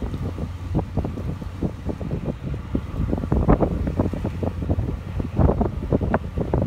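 Wind buffeting the microphone in irregular gusts, over a low steady rumble.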